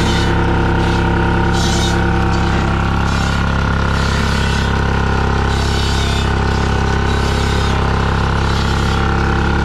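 Holder ED 2's two-stroke diesel engine running steadily at a constant speed, driving a firewood processor through its PTO shaft.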